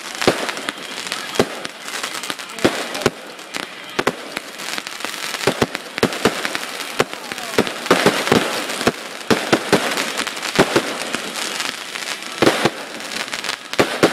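Aerial fireworks bursting in quick, irregular succession: many sharp bangs over constant crackling, with a dense flurry of reports about three-quarters of the way through.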